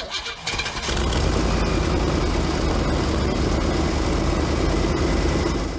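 A motor running steadily, with a deep hum under a hiss. It builds up during the first second and stops abruptly near the end.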